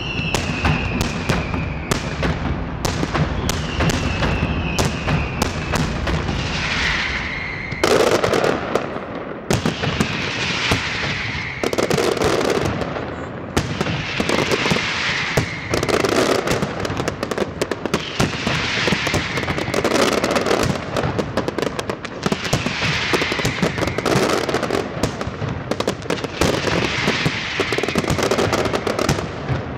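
Fireworks display in full flow: dense, rapid crackling and bangs of aerial shells, with a few high whistling tones that fall in pitch during the first several seconds and louder bursts about every two seconds later on.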